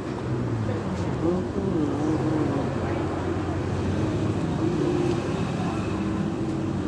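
Steady outdoor street noise: a low traffic rumble with voices in the background.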